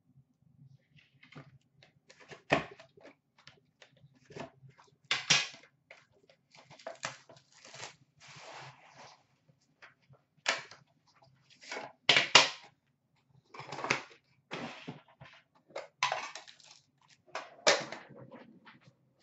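Sealed hockey card box being unwrapped and opened by hand: irregular crinkling and tearing of plastic wrap and cardboard, with a few sharp knocks as the box and pack are handled.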